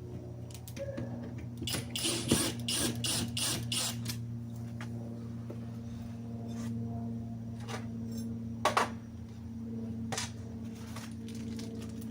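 Small lock parts and hand tools clicking and rattling while a door lock is assembled: a quick flurry of clicks a couple of seconds in and one sharp click near the end, over a steady low hum.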